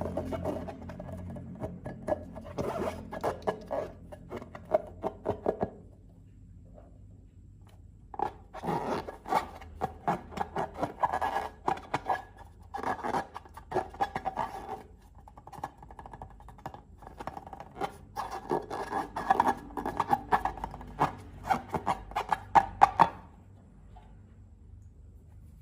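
Slime being worked by hand, giving crackly, sticky clicking and scraping in three bursts of several seconds each with short pauses between.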